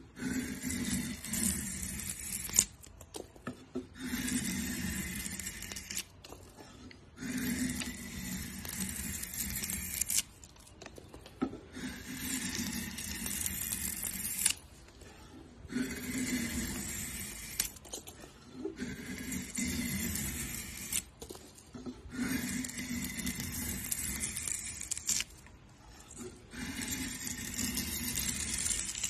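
Curved drawknife shaving long curls off a wooden board: about eight slow, rasping scraping strokes, each two to three seconds long, with short pauses between them.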